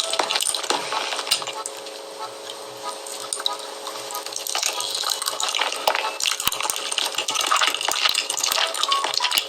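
Close-miked mukbang eating sounds: cutlery clinking on dishes and sticky, wet food noises, with many sharp clicks.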